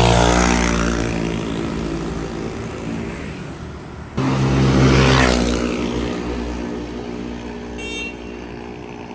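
Honda SH 150i scooter's single-cylinder engine riding past and pulling away, its note falling in pitch and fading; after a cut about four seconds in it passes again and fades the same way. This is a test ride after the worn final drive gears and bearings were replaced to cure a whine and clunking.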